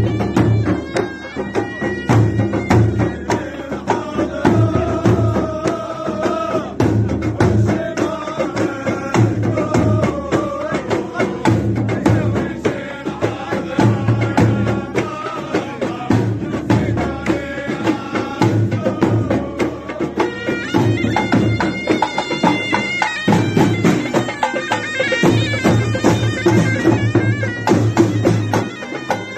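Tunisian hadra procession music played live: drums beating a steady rhythm under a reedy wind instrument carrying the melody.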